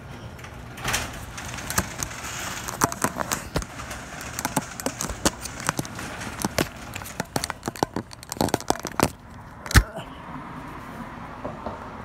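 Sectional garage door going up, rattling with a run of irregular clicks and clacks, and one sharp knock near the end.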